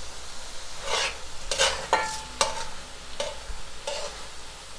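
Metal spoon stirring and scraping thick pumpkin halwa around a metal pan, about six scrapes from a second in.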